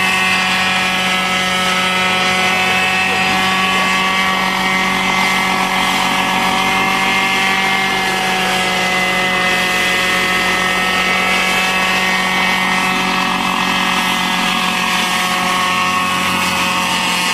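Homemade one-man helicopter hovering: its high-revving engine and two counter-rotating rotors give a steady, loud whine, the pitch wavering only a little.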